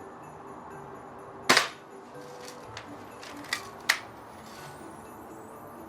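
BB gun shots: one loud sharp crack about one and a half seconds in, then two quieter cracks close together between three and a half and four seconds in.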